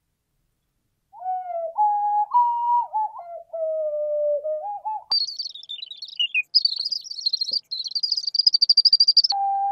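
A small white ceramic ocarina being blown. About a second in it plays a wavering tune of a few low notes. Halfway through it jumps to a shrill, high warbling trill that flutters quickly near the end, then drops back to one short low note.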